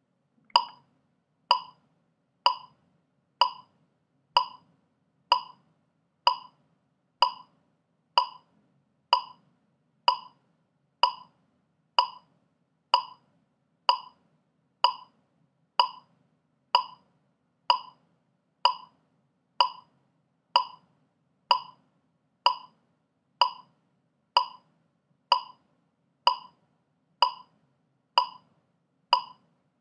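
Metronome click track ticking at 63 beats per minute: one short, sharp click just under a second apart, all the clicks alike, starting about half a second in.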